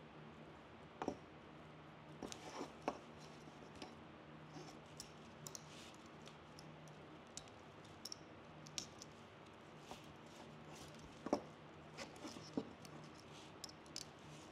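Evergreen sprigs being handled and pushed into a wreath: scattered rustles and sharp clicks of stems and needles against each other and the paper, over a faint steady low hum.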